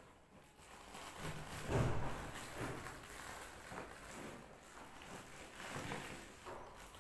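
A plastic courier mailer and the crumpled brown paper inside it being handled, rustling and crinkling in several separate bursts, the loudest about two seconds in.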